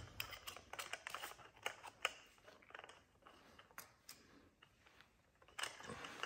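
Light clicks and taps of piston parts and an assembly tool being handled, several in the first two seconds, fewer in the middle, and a few more near the end.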